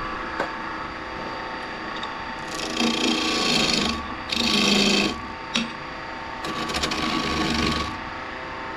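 Curved skew chisel cutting a spinning oak spindle on a wood lathe: three cutting passes, about 2.5, 4.5 and 6.5 seconds in, the middle one loudest, over the steady hum of the running lathe.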